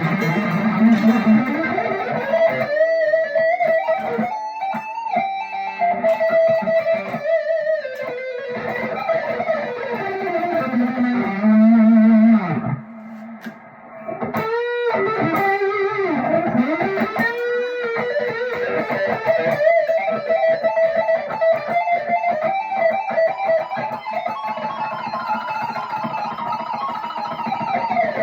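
Electric guitar with single-coil pickups, a Strat-style partscaster, played as solo melodic lead lines with string bends and vibrato dips in pitch. The playing pauses briefly about 13 seconds in.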